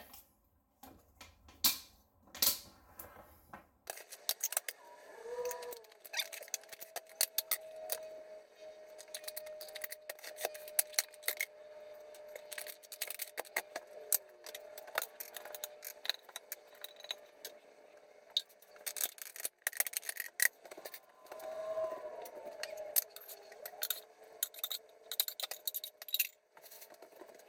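Plastic meal-prep containers being handled: repeated light clicks, knocks and rattles as their lids are pressed shut and the containers are moved about. A faint steady hum sits underneath from about four seconds in.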